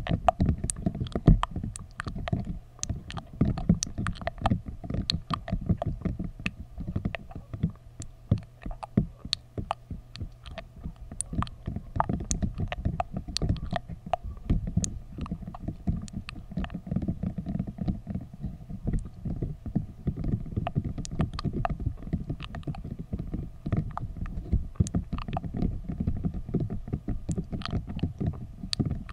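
Spiky silicone sleeve handled against a foam-covered microphone: a dense, irregular run of close-up rubbing thuds and low rumble, with many sharp crackles and clicks scattered through it.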